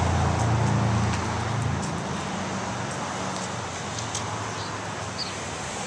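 Street traffic: a passing vehicle's engine rumble, loudest at first and fading over the first couple of seconds, over steady street noise.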